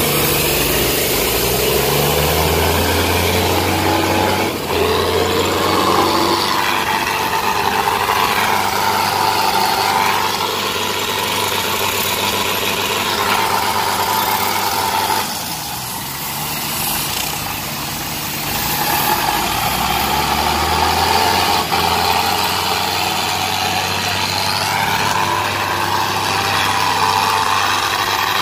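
Tractor diesel engines running hard and revving, their pitch rising and falling several times as the hitched tractors pull against each other in a tug-of-war. The engine sound eases briefly a little past halfway, then picks up again.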